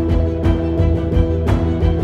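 Background music: sustained held chords over a deep pulsing bass, with a percussive hit about once a second.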